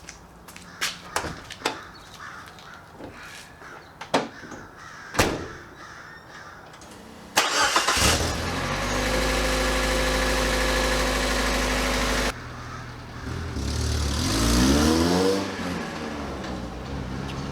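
A few clicks and knocks, then the 1988 Suzuki Samurai's four-cylinder engine starts about seven seconds in and runs steadily. After an abrupt break it revs up and falls back down.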